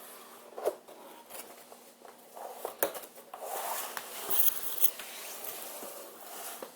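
Cardboard box and packaging being opened and handled: rustling and scraping with scattered light knocks and clicks, busiest in the middle.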